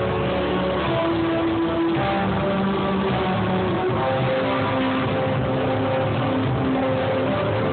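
Live band music with guitar, played over a concert sound system and recorded from the audience, with held notes and a steady level throughout.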